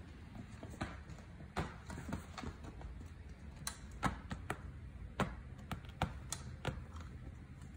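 Irregular light clicks and taps of kittens batting at and knocking about plastic cat toys, about a dozen sharp ticks at uneven intervals with the loudest a little after four and five seconds in.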